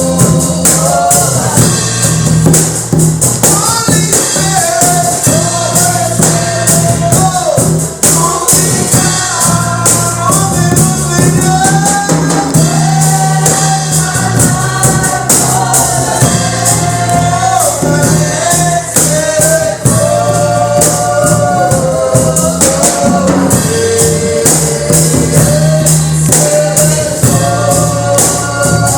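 Gospel praise music: singers carrying a melody over a band, with a tambourine shaking in a fast steady rhythm and a steady bass line underneath.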